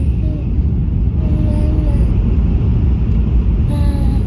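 Steady low rumble of a Shinkansen bullet train running, heard inside the passenger cabin, with a few brief voice sounds over it.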